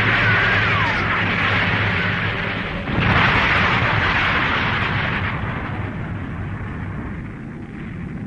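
Cartoon sound effects of explosions: a continuous heavy blast noise with a short falling whistle near the start, a fresh explosion about three seconds in, then dying away gradually.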